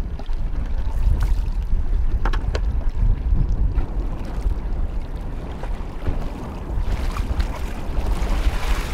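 Strong wind rumbling on the microphone, with water splashing as a crab trap is hauled up by its rope over a boat's bow; there are a few short knocks, and the dripping trap comes out of the water near the end.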